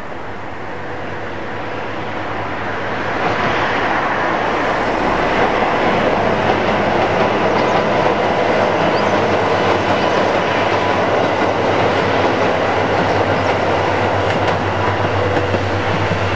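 KiYa E195 diesel rail-transport train crossing a steel girder bridge, its wheels running over the rails with a steady low engine note. It grows louder about three seconds in and stays loud.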